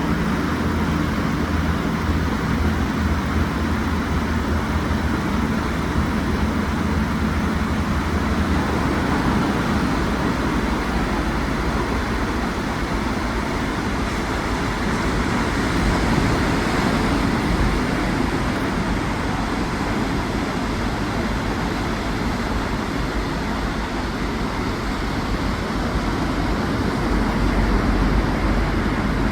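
Ocean waves breaking and washing on a sandy beach: a steady rush of surf, with a low hum underneath for roughly the first eight seconds.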